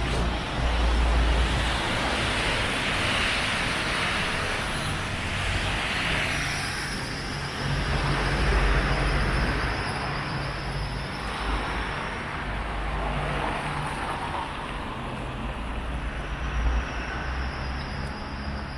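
City street traffic: cars and a bus going by, a steady mix of engine hum and tyre noise that grows louder about a second in and again about eight seconds in.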